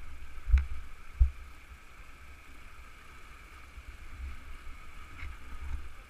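Steady rush of river water running over rocks in small rapids, with an uneven low rumble and two sharp thumps, about half a second and just over a second in.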